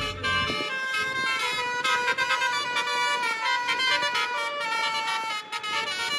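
An Azzalea bus's basuri 'telolet' multi-tone horn playing a melody of held notes that change in steps. A low engine rumble under it drops away about half a second in.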